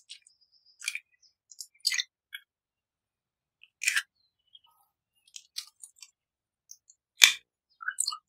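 Eggshells cracking and being broken open over a glass bowl: a series of short, sharp cracks and crackles, the loudest about seven seconds in.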